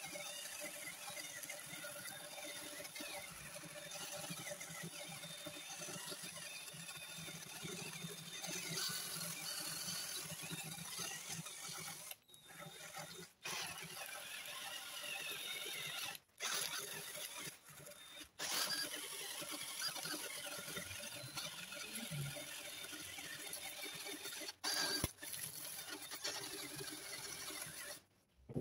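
Cordless impact driver spinning a nylon cup brush that scrubs stripper-softened old finish out of carved wood, the motor whirring with the bristles working against the carving. It stops briefly several times as the trigger is let off and picked up again.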